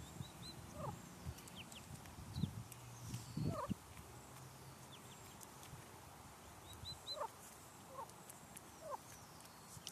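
Wild turkey hen and her poults calling softly: scattered short peeps and clucks, a second or so apart, some high and thin, others lower.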